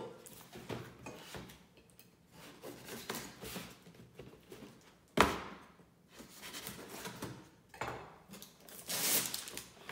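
A cardboard shipping box being opened by hand: a knife scraping through the packing tape and the box rubbing and rustling, with one sharp knock about five seconds in and a longer ripping sound of tape being torn near the end.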